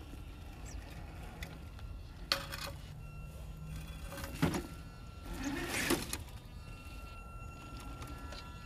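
RC crawler truck's electric motor and gear drive whining steadily as it crawls slowly over rock, towing a small trailer. A few sharp knocks and a scraping rattle, about two and a half, four and a half and six seconds in, as the truck and trailer bump over the rocks.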